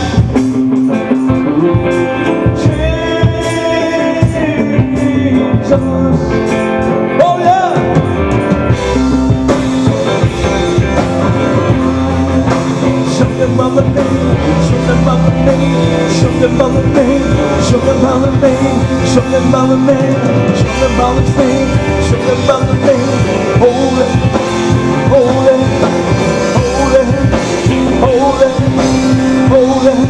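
Live rock band playing: electric guitars, bass guitar and drum kit, loud and continuous.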